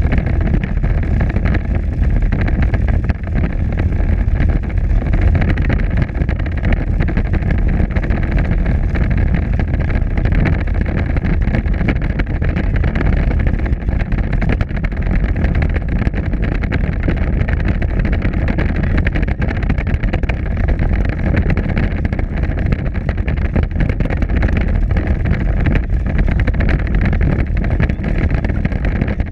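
Power Wheels ride-on toy car driving over concrete and cracked pavement: a loud, steady drone from its drive, with the hard wheels rumbling on the rough surface.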